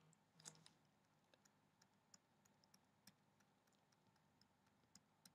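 Near silence with faint, scattered clicks and taps of a pen stylus on a drawing tablet, a slightly louder tap about half a second in.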